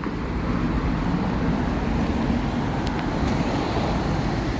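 Steady city road traffic: engines and tyres of passing vehicles.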